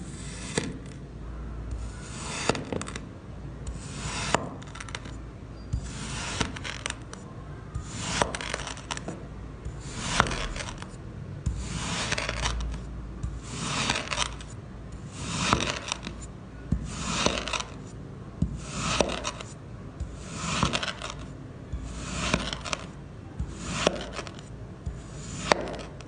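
Knife slicing through a packed block of kinetic sand, one gritty scraping stroke about every one and a half to two seconds, about fifteen in all, each ending in a sharp click.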